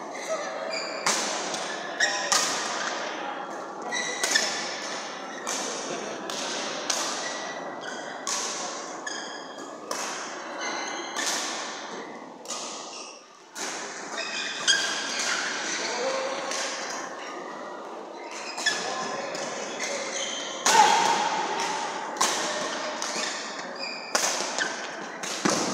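Badminton rally: rackets striking the shuttlecock in a series of sharp smacks, a few a second with short breaks between points, each echoing in a large hall.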